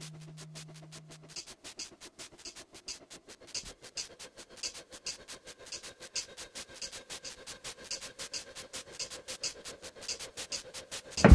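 Soundtrack of fast, even ticking, about eight ticks a second, like a clock. A low held tone under it stops about a second in, and faint held tones sound beneath the ticks.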